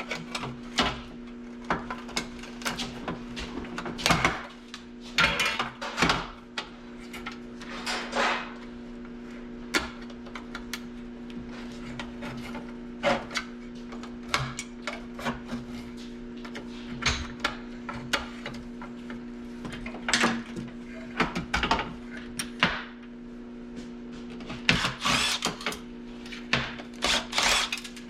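Irregular clicks, snips and clattering knocks of hand tools and plastic and metal parts being handled as a dehumidifier is pulled apart for scrap, over a steady low hum.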